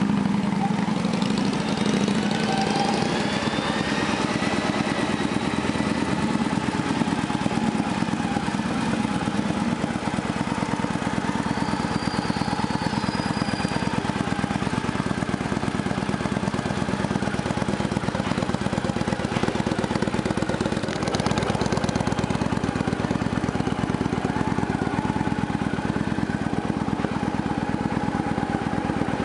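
Victory Cory Ness Jackpot motorcycle's V-twin engine idling steadily.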